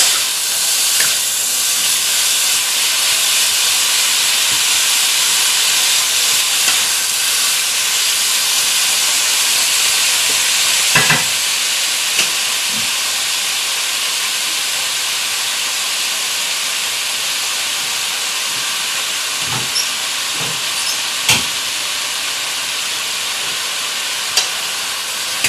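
Chicken and diced onions sizzling in hot oil on high heat, a steady loud hiss, with a few sharp knocks as they are stirred in the pan.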